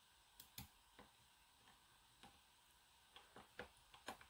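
Faint, sparse clicks of a metal pick working the pins inside the keyway of a Schlage LFIC interchangeable core as it is picked to the control shear line: a few ticks in the first second, then a quicker run of clicks near the end.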